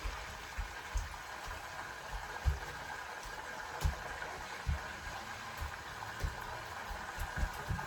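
Steady sizzling and bubbling of food cooking in pans on a stovetop, with a few soft low thumps scattered through.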